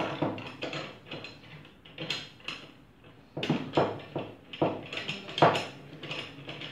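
A metal welding jig and a PVC water-stop strip being handled on a tabletop: irregular knocks and clinks as the strip is fitted into the jig's clamp bars.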